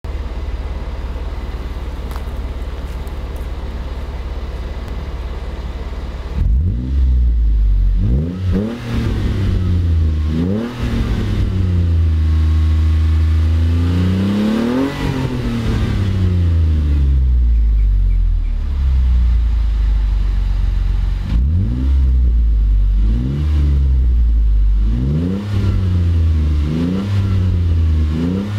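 Ford Mondeo ST220's 3.0 V6 through a Mongoose full exhaust system, heard at the tailpipes: idling steadily for about six seconds, then revved in sharp blips. Around the middle comes one longer rev that climbs and falls back to idle, and near the end a quicker run of blips.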